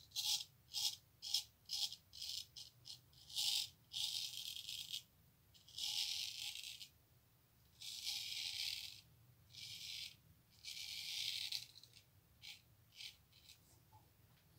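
Hollow-ground straight razor cutting through three-to-four-day stubble with a crisp, high-pitched rasp: a quick run of short strokes, then longer strokes of about a second each, then a few short ones near the end. The blade 'sings' on the beard.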